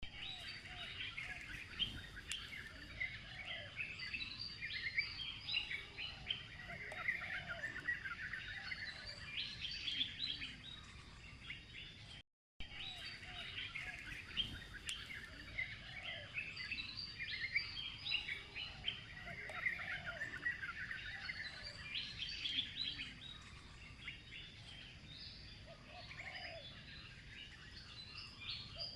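Many birds chirping and calling at once: a dense chorus of short high chirps with a few lower calls mixed in. The sound cuts out completely for a moment about twelve seconds in.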